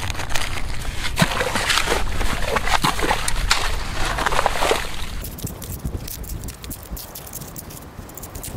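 Seawater sloshing and gurgling as it seeps back into a freshly dug clam hole in wet sand, with many small crackles. It is louder in the first half and thins to a faint ticking trickle after about five seconds.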